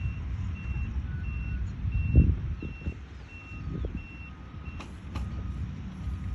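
Vehicle reversing alarm beeping at a steady pace, about three beeps every two seconds, stopping about two-thirds of the way through, over a low rumble.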